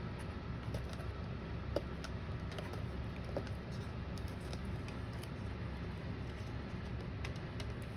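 Faint, scattered small clicks and taps of hands working at a laptop's taped-on screen cable connection, over a steady low background hum.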